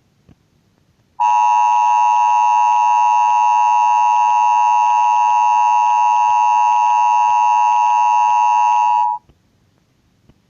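Emergency Alert System two-tone attention signal: a loud, steady electronic tone that sounds for about eight seconds, starting about a second in and cutting off sharply.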